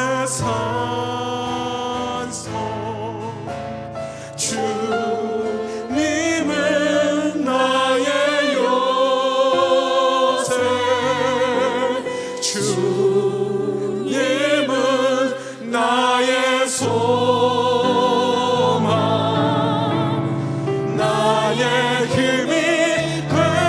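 Choir singing a slow hymn or gospel song with vibrato over sustained instrumental chords and a held bass line.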